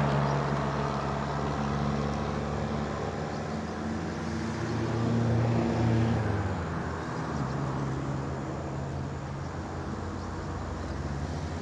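Steady engine drone over a low outdoor rumble. Its pitch shifts and swells briefly about five seconds in, then fades back.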